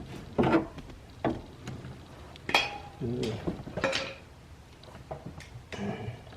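Metal hand tools and parts of a car door's window regulator clinking and knocking together, several sharp clinks at uneven intervals while a bent piece is worked on.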